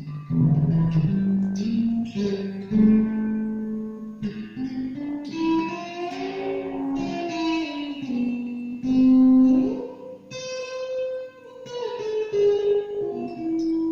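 Revelation RJT60 electric guitar played through a Vox Tonelab modelling amp: slow single sustained notes, one at a time, with slides between them and a rising slide about two-thirds of the way through.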